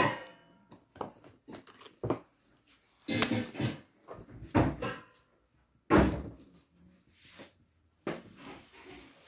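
Hands handling markers and paper on a desk: a series of separate knocks and scuffs, the loudest about three, four and a half and six seconds in.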